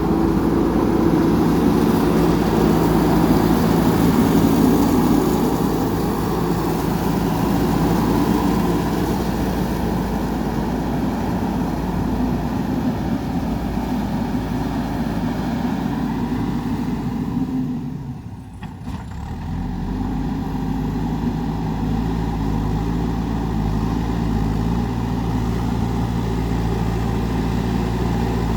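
JCB 3DX backhoe loader's diesel engine running under working load. It is steady and a little louder in the first few seconds, then drops away briefly about two-thirds of the way through before running on evenly.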